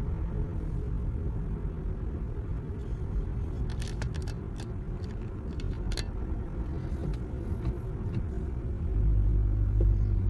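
Road noise heard inside a moving car: a steady low rumble of engine and tyres. A few light clicks come in the middle, and the rumble grows louder near the end.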